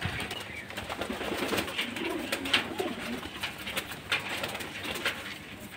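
Domestic pigeons cooing, a low coo around two to three seconds in, with scattered sharp clicks throughout.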